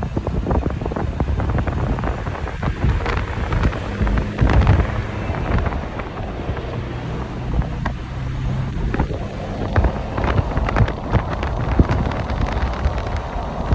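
Moving car's road noise with wind buffeting the microphone, full of short crackles over a low steady hum.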